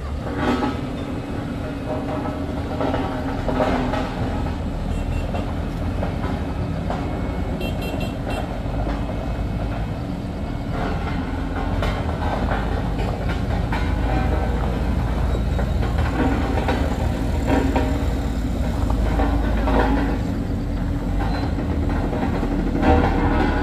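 Heavy diesel engines of a wheel loader and road roller running, a steady low rumble that grows somewhat louder about halfway through.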